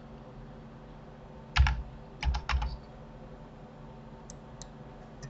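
Computer keyboard keys being pressed: a quick pair of clicks, then a rapid run of four, then a few fainter single clicks near the end, as a rotation value is typed in.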